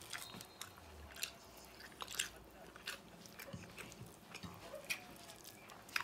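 A person chewing food close to the microphone, with irregular wet mouth smacks and clicks, roughly two a second.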